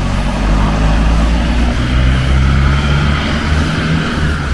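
A motor vehicle's engine running, a low steady hum with a rush of noise above it that grows louder around the middle.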